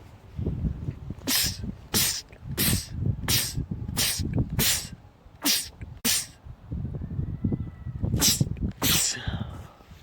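A man sneezing in a rapid run: about eight short, sharp sneezes roughly two-thirds of a second apart, then after a pause two more near the end, with a low rumbling noise between them.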